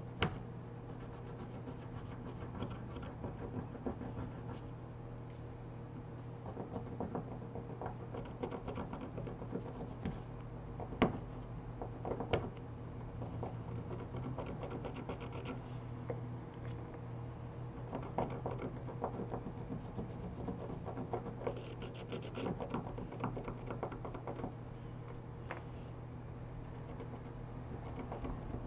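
Small hand tools scratching and clicking against a smartphone's parts during disassembly: irregular light taps and scrapes over a steady low electrical hum.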